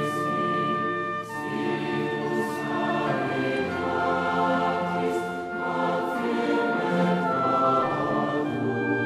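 Choir singing slow, held chords that change every second or two.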